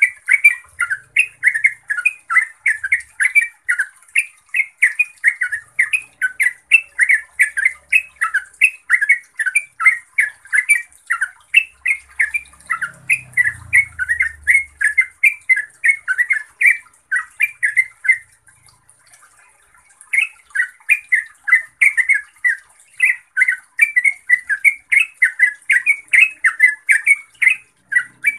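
Yellow-vented bulbul singing: a long run of quick chattering notes, about three a second, that breaks off for about two seconds roughly two-thirds of the way through and then starts again.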